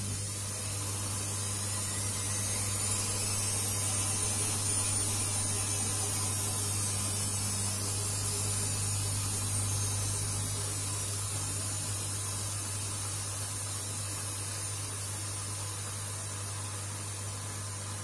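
Front-loading washing machine running mid-wash: a steady low motor hum with a hiss of water over it. The sound swells a few seconds in and eases slowly toward the end.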